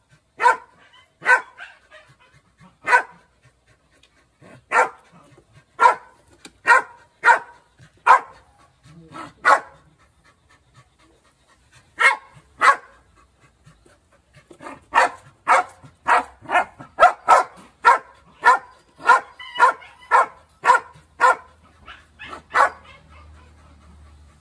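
Dog barking at a wire cage trap in short, sharp barks, in irregular runs with brief pauses, then a fast run of two to three barks a second.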